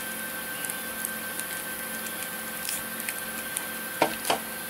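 Hands handling a small plastic-wrapped TV box: faint rustles and light taps over a steady background hiss with a constant hum, and two sharper knocks near the end.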